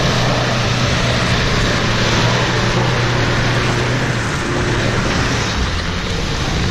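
Nissan Navara pickup's engine running hard at high revs, its tyres spinning in deep mud with a steady rush of churning and flung mud. The engine note drops a little about four seconds in.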